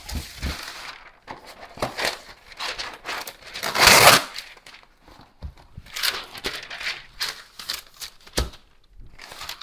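Parchment paper rustling as it is pulled off the roll, with one loud tear across the box's serrated cutting edge about four seconds in, then crinkling as the sheet is pressed down into a cookie sheet.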